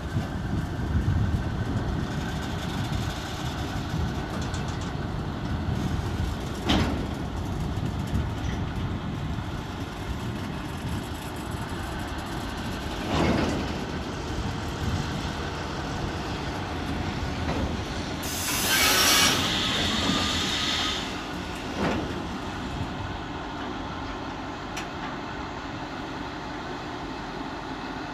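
Loaded stone hopper wagons of a freight train rolling slowly past with a steady rumble, with a few sharp clanks from the wheels and couplings. About two-thirds of the way through, a loud high-pitched screech lasts about three seconds.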